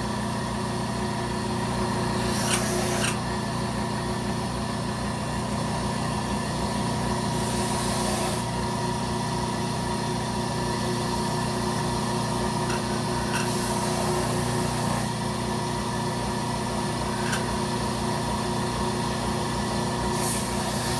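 Belt sander running steadily, with four short bursts of grinding hiss as the knife's handle pins are held to the belt and sanded flush with the scale.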